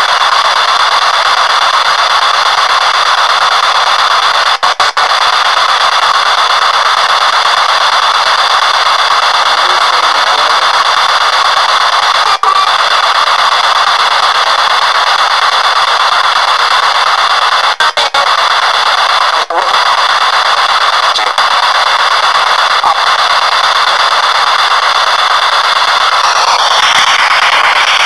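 P-SB7 spirit box sweeping through radio frequencies over an external speaker: a loud, steady hiss of radio static, cut by brief dropouts a few times and turning warbly near the end.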